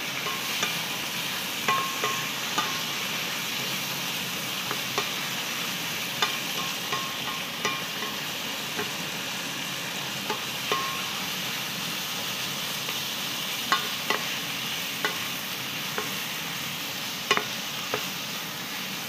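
Beef slices, red onion and garlic sizzling steadily in oil and soy sauce in a frying pan, stirred with a wooden spatula that clicks and knocks against the pan at irregular moments.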